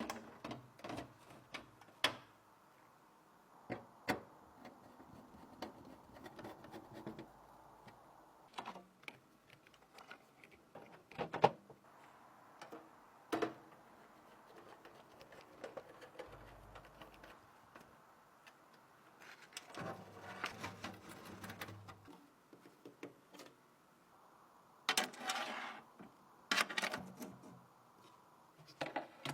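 Scattered sharp clicks and knocks of computer hardware being handled and fitted, with two spells of rustling near the middle and toward the end.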